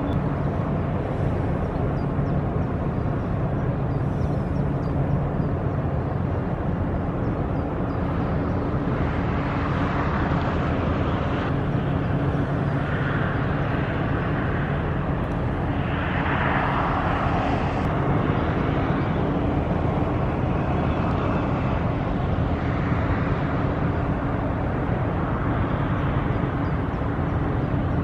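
Inland motor cargo ship's diesel engine droning steadily across the water, a constant low hum with a rushing noise that swells a few times.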